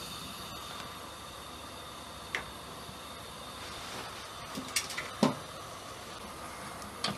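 Metal spoon stirring thick honey in a small stainless-steel saucepan over a gas flame: a few sharp clinks of spoon on pan, the loudest a little past halfway, over a steady low hiss.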